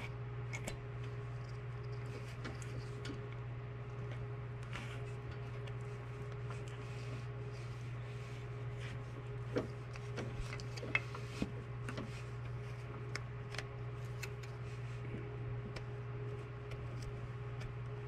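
Small clicks and rustles of a hand fitting a plastic PTO switch and its wiring connector into a metal bracket, with a few sharper clicks about halfway through, over a steady low hum.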